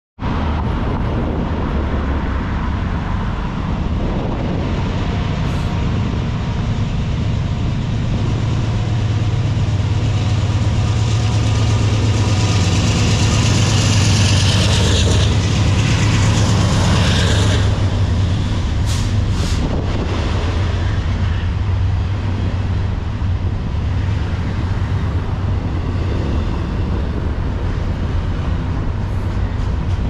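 Norfolk Southern diesel freight locomotives chugging under the bridge. Their deep engine drone builds to its loudest midway as they pass beneath. It is followed by the rumble of a long double-stack container train rolling by, with a few sharp wheel clicks.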